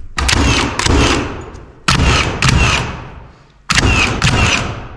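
Nails being driven into wooden wall framing: sharp, ringing impacts in pairs about half a second apart, about seven in all.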